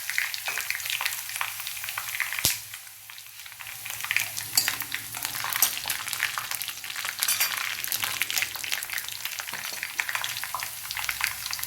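Hot oil sizzling and crackling in a pan as mustard seeds, small onions and dried red chillies fry for a sambar tempering, stirred with a spoon. There is a sharp knock about two and a half seconds in, and the sizzle dips for about a second after it.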